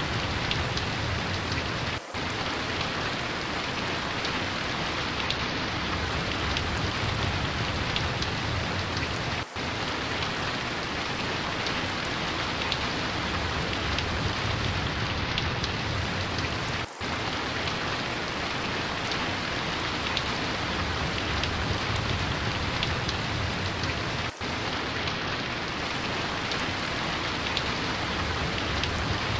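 Steady heavy rain pouring onto a surface, a dense even hiss, broken by a split-second gap about every seven seconds.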